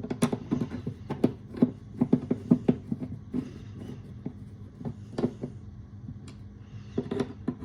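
Irregular sharp clicks and knocks from a screw and the metal latch hardware being fitted and driven into a steel-belted cooler with hand tools, quick and busy at first, then a few scattered knocks. A faint steady hum runs underneath.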